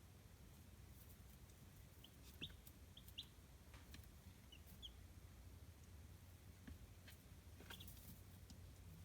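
Faint peeping of young chicks: a handful of short, high chirps, most of them a few seconds in and one more near the end, over a steady low hum with a few light ticks.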